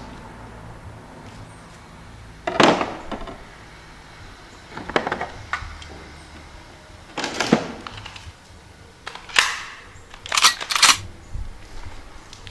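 Knife and pistol being lifted out of a hard plastic carrying case: a series of sharp clicks and knocks a couple of seconds apart. Near the end the pistol is handled, with a quick pair of sharp clicks.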